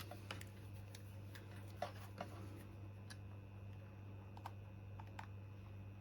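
Faint, irregular light clicks and taps, about eight in six seconds, as multimeter probes are put to the keyboard's battery cell to check its voltage. A steady low electrical hum runs beneath them.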